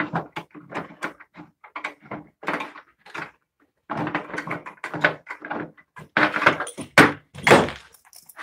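Irregular knocks, taps and scrapes of a wooden board being handled and shifted against a clamp on a table saw top, with a sharper knock about seven seconds in.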